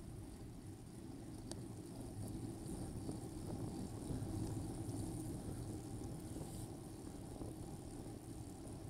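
Steady low rumble of wind on the microphone and tyre-on-road vibration from a moving bicycle, growing a little louder around the middle, with a single faint tick about one and a half seconds in.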